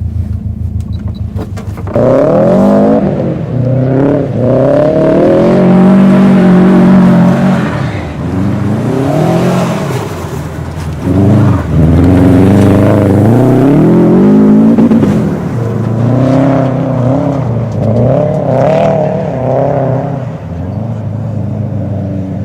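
Car engine idling with a rapid pulse, then about two seconds in revving hard, its pitch climbing and dropping over and over as the car is driven sideways through mud.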